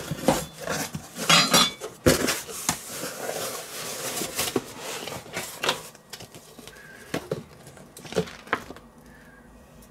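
A cardboard box being opened by hand: flaps folding back and crinkled paper packing filler rustling, with a sharp knock about two seconds in. The handling grows quieter in the second half, down to light rustling of a card.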